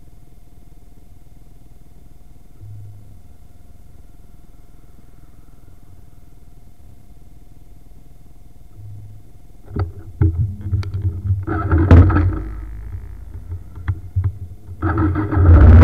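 Motorcycle engine idling quietly while stopped, then revving in loud, irregular bursts with sharp clicks from about ten seconds in as the bikes pull away. Music starts near the end.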